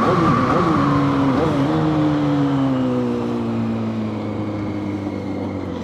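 A motor vehicle's engine running, its pitch sliding slowly and steadily down, with brief wobbles in the first couple of seconds.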